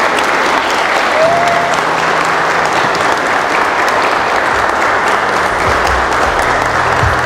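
A congregation clapping steadily in a church, with a brief rising whistle-like tone about a second in.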